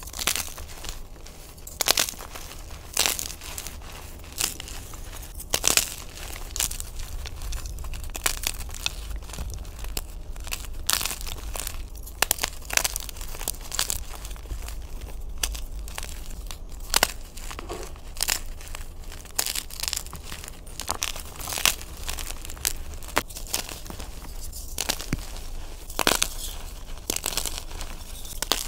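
Hands crushing and crumbling soft reformed gym chalk: irregular sharp crunches and snaps as pieces break, over a steady dry crumbling of powder.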